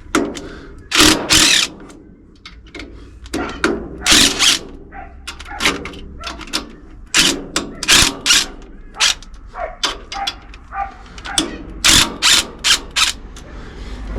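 Irregular metallic clinks, knocks and short rattles of hand tools and bolts being worked into place under a carburettor adapter plate on an engine, some sharp and loud, coming in uneven clusters.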